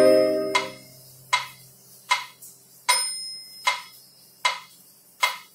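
A final chord on a Casio electronic keyboard fades away over about the first second, then a metronome ticks steadily, a little more than one tick a second, with a higher ding on every fourth beat marking the start of each bar.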